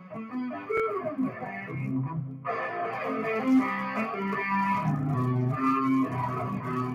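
Electric guitar played through an amplifier with effects, ringing out sustained notes and chords. The higher notes break off briefly about two seconds in, then resume.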